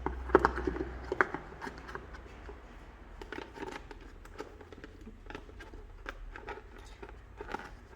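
Hands handling the iPad's charging brick, cable and box packaging: scattered light clicks, taps and rustles, sharpest in the first second or so.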